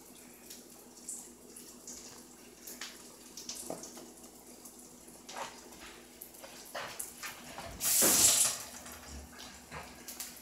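Small knife scrapes and clicks as a kiwi is peeled, over a faint steady hiss, with one brief, louder rush of noise about eight seconds in.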